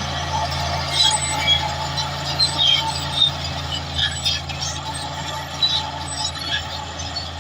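Large crawler bulldozer's diesel engine running steadily under load, with scattered short metallic squeaks and clinks from the tracks and rock.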